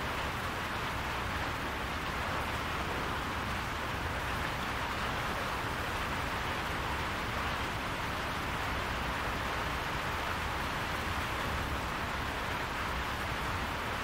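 Steady rain falling on a barn roof, an even wash of sound with no single drops or thunder standing out.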